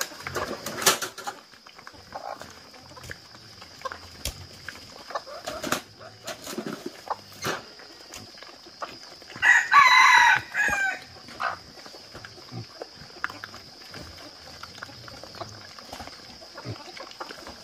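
A rooster crows once, about halfway through, in a loud, multi-part crow, amid scattered short clicks and knocks.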